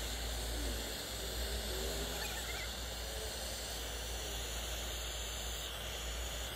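Brazing torch flame hissing steadily while it heats a copper refrigerant pipe joint on a deep freezer's cooling coil.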